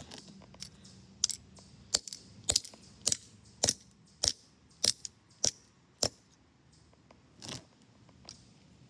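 Hammer striking a grey casing piece of a PNY Turbo Attache USB flash drive on concrete: about ten sharp blows in a steady rhythm, roughly one every 0.6 seconds, then a couple of softer hits near the end.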